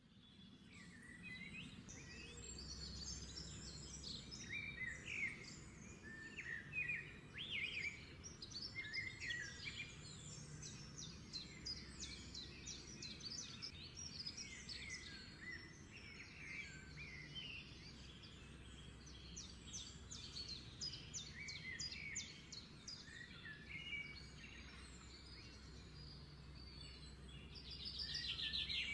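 Birds chirping and singing, many short calls over a faint low steady hum, with a fast trill near the end.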